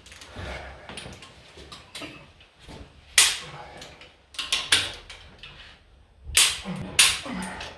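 Click-type torque wrench giving several sharp clicks, some in quick pairs, as the cylinder head bolts are tightened to torque.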